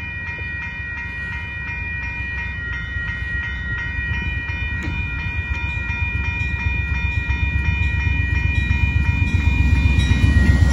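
Railroad crossing bell ringing steadily at a grade crossing as an Amtrak diesel locomotive, a GE P42DC, approaches slowly. The locomotive's low rumble grows steadily louder toward the end.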